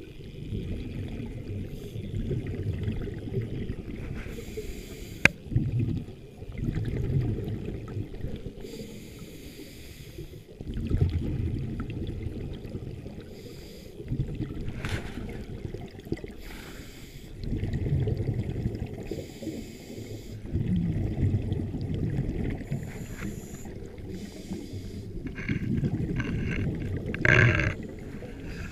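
Scuba regulator breathing heard underwater: long low rumbles of exhaled bubbles, each lasting a few seconds, alternating with the hiss of inhaled air, in a slow repeating cycle. A sharp click about five seconds in.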